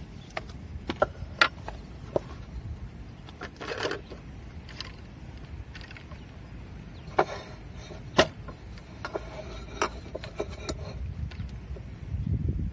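Scattered clicks and knocks of hard plastic and metal camping gear being handled, with a short scraping rustle about four seconds in as a Nalgene water bottle's screw cap is taken off. A steady low rumble of wind on the microphone lies under it.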